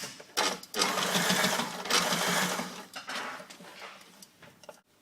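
Sailrite portable walking-foot industrial sewing machine stitching through a thick stack of material. It runs steadily for about two seconds, then slows and stops, sewing through without trouble.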